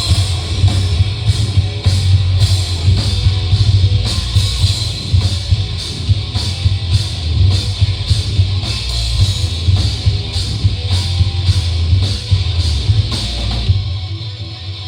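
Live rock band playing: drum kit keeping a steady beat of about two hits a second over electric guitar and heavy bass. Near the end the drums stop and the music drops in level.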